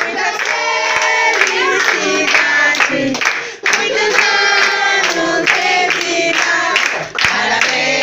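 A crowd of party guests singing a birthday song together, clapping along in rhythm.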